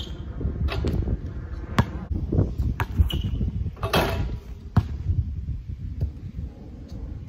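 Basketball bouncing on a concrete driveway in a run of sharp knocks as it is dribbled. About four seconds in, a dunk sets the hoop's rim and backboard briefly clattering, followed by a few more bounces.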